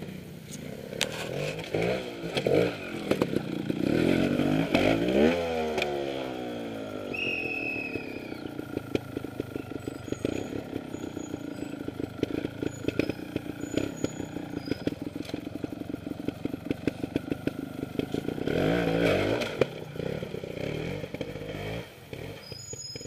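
Trials motorcycle engine revving in short bursts of throttle, falling back to a quick even putter between, with a second burst of revs near the end.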